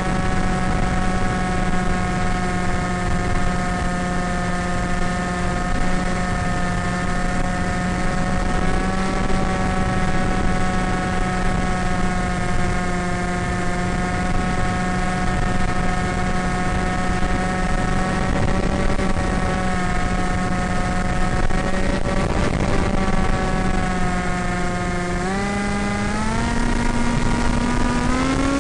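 The AXN Floater RC plane's electric motor and pusher propeller running with a steady whine, whose pitch steps up about 25 seconds in and again near the end as the throttle is opened.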